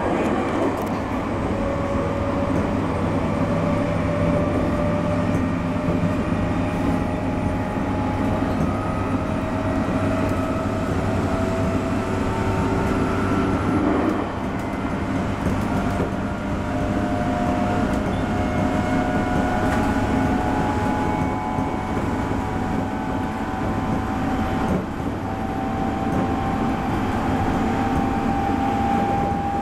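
A 719 series electric train running, heard from inside the driver's cab. A steady rumble of wheels on rail sits under a motor whine that slowly rises in pitch as the train gains speed. The whine drops back about halfway through and again briefly near the end, then climbs once more.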